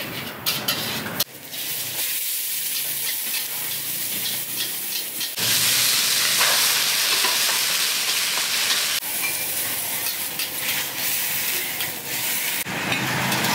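Chinese kale sizzling as it is stir-fried in a hot wok, with a metal ladle and spatula scraping and clinking against the pan. A few sharp clinks come in the first second, and the sizzle grows louder about five seconds in.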